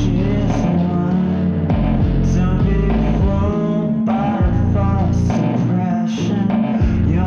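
Music: a rock song with guitar, a bass line and a wavering melody, playing steadily.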